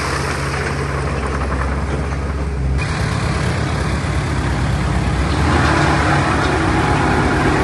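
Heavy diesel earthmoving machinery engine running steadily; about three seconds in the sound changes abruptly to a rougher, throbbing engine sound.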